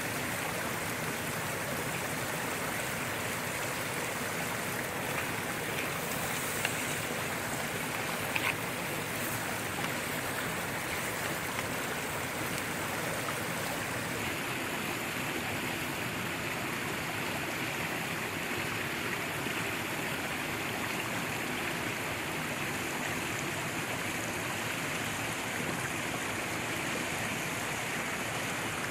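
Mountain stream rushing steadily, with a couple of small clicks.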